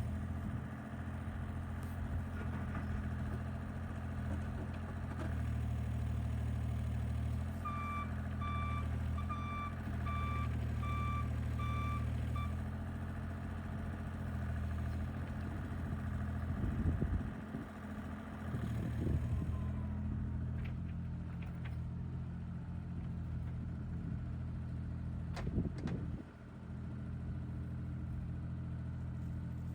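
Bobcat E35 mini excavator's diesel engine running under hydraulic work, its note rising and falling as it is loaded. Its alarm beeps steadily for about five seconds around a third of the way in, with a few knocks from the machine later on.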